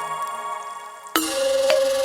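Instrumental intro music. A sustained, layered chord fades, then about a second in a new part starts abruptly with sharp percussive hits over a steady held note.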